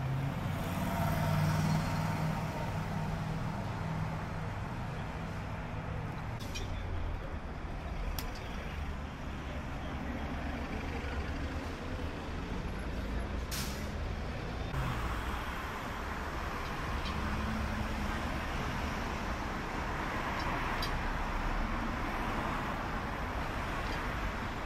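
Street traffic with a heavy vehicle's engine running low and steady, one short sharp sound about halfway through, and traffic noise swelling in the second half.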